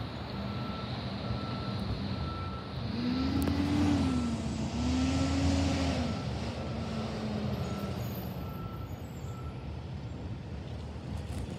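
Railroad crossing warning bell dinging on one high note about once a second, over steady traffic noise. Between about three and seven seconds in, a heavy vehicle's engine grows louder and rises and falls in pitch twice.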